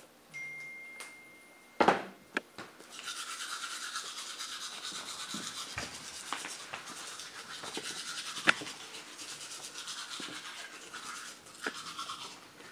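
Two sharp clicks about two seconds in. Then a manual toothbrush scrubs teeth in quick back-and-forth strokes, a steady rasping brushing that eases off near the end.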